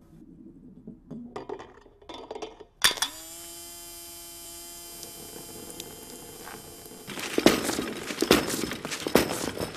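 A few light mechanical clicks, then an electric windscreen-washer pump from a Honda Accord starts with a rising whine and runs steadily for about three seconds while it sprays. It is followed by a run of irregular clacks and taps as the wiper motor and its blades move over a wooden floor.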